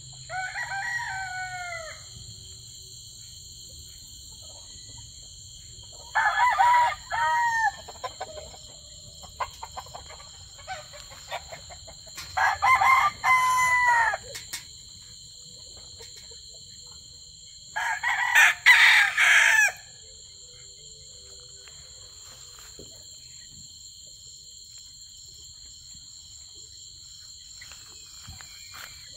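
Gamecock roosters crowing: four crows about six seconds apart, the first one quieter, each under two seconds long.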